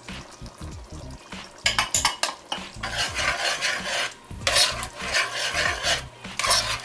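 A spoon scraping and stirring in a pot of simmering curry, in repeated scraping strokes, as ground cashew is mixed in.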